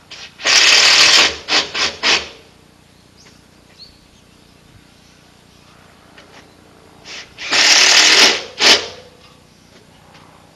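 A power tool run in two bursts, as in driving screws into the carport's aluminium frame. Each burst lasts about a second and a half and ends with two or three short blips of the trigger. The second burst comes about six seconds after the first.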